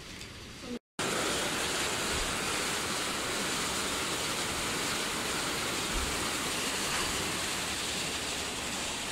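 Canal water rushing through the inlet screening channel of a water purification works, a steady loud rush that starts abruptly about a second in after a brief gap.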